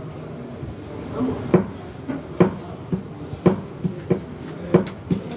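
A series of about seven sharp taps or clicks, irregularly spaced roughly half a second to a second apart, starting about a second and a half in.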